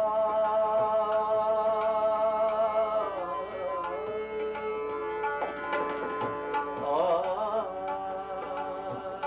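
A male voice sings a Hindi bhajan in raga Bhairavi, holding a long note and then moving into wavering, ornamented phrases, accompanied by harmonium and tabla.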